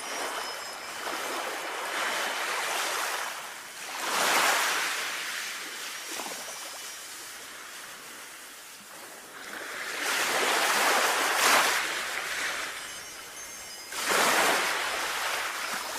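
Sea waves washing in, swelling up and falling back again and again, loudest about four, eleven and fourteen seconds in.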